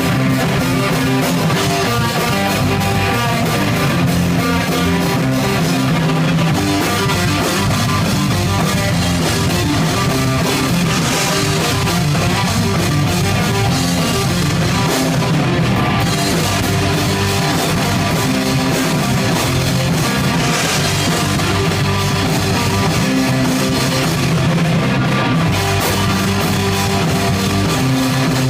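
A rock band playing live, with electric guitars and a drum kit playing loud and steady.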